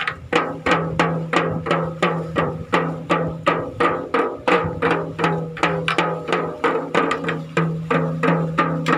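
Music with an even drum beat of about three strikes a second over held low notes, along with a small toy drum beaten with sticks in time.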